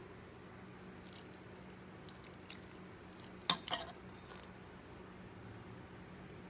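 Dressing poured from a small bowl onto a salad in a glass mixing bowl: mostly quiet over a faint steady hum, with two quick ringing clinks about halfway through as dish touches glass.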